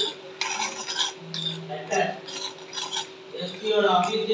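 Steel spoon stirring and scraping a dry, coarse crumble of ground chana dal in ghee around a stainless steel kadai, with irregular scrapes and clinks against the pan. The strokes are loudest near the end.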